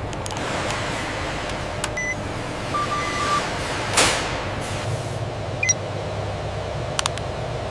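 A handheld barcode scanner beeps three times: a short beep about two seconds in, a longer lower tone just after it, and another short beep past halfway. Under it runs a steady hum like building ventilation. A sharp whoosh about four seconds in is the loudest sound, and a few light clicks come near the end.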